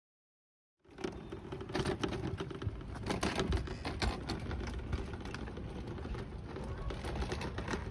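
Hoverboard-powered kids' go-kart rolling over textured stamped concrete: a dense, rapid rattling clatter from its wheels and body, starting about a second in.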